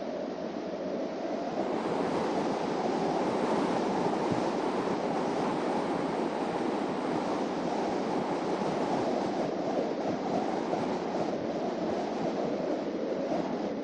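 Steady road noise from a moving car: tyre rumble and wind rush, a little louder from about two seconds in.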